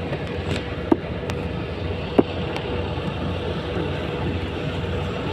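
Steady low outdoor rumble with a faint steady hum, and two short sharp knocks about one and two seconds in as plastic-wrapped boxes are handled.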